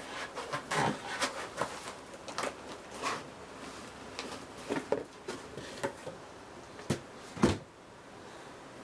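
Cardboard shipping box being opened and rummaged by hand: crinkling and rustling of flaps and packing in short bursts, with scattered knocks and one louder thump near the end as the boxed item is lifted out.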